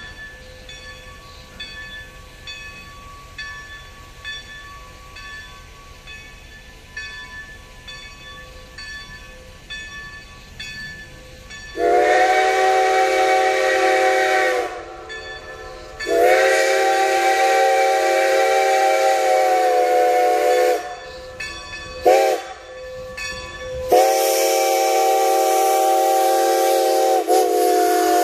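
Railroad grade-crossing bell ringing steadily, then the steam whistle of Strasburg Rail Road No. 90, a 2-10-0 steam locomotive, blowing the grade-crossing signal: two long blasts, a short one and a long one. The whistle is a chime of several notes sounding together.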